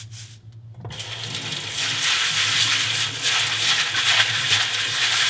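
Kitchen faucet turned on about a second in, its water running steadily onto dried azuki beans in a stainless mesh strainer as they are rinsed.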